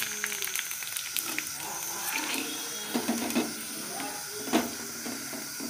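Golgappa puris deep-frying in hot oil in a steel kadhai, a steady sizzling hiss. A wire-mesh strainer knocks against the pan a few times around three seconds in, and hardest about four and a half seconds in, as the puffed puris are lifted out.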